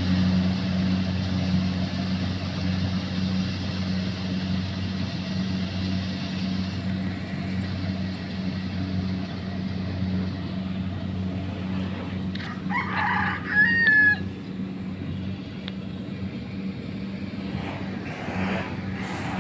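Combine harvester's engine running steadily. A rooster crows once, loudly, about two-thirds of the way through.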